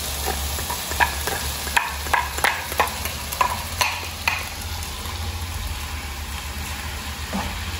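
Onion and bell pepper strips sizzling in oil in a nonstick pan while diced tomato is scraped in from a glass bowl and stirred, a spatula clacking and scraping against the bowl and pan. The clacks stop a little past halfway, leaving the steady frying sizzle.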